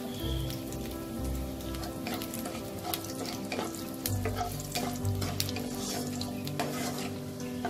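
Bay leaf, dried red chillies and nigella seeds sizzling in hot mustard oil in a non-stick kadai, the tempering (phoron) stage of the dish. A spatula stirs them, scraping and tapping against the pan in scattered clicks.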